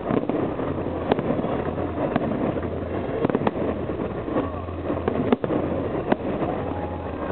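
Festive fireworks display going off: about six sharp bangs, roughly one a second, over a steady rumbling, noisy background.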